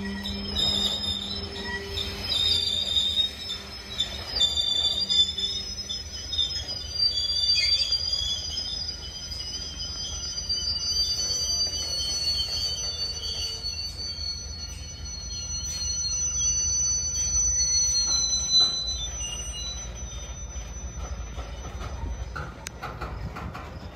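Train cars rolling past with their steel wheels squealing on the rails: a high, wavering squeal that slowly drops in pitch and dies away well before the end, over a steady low rumble.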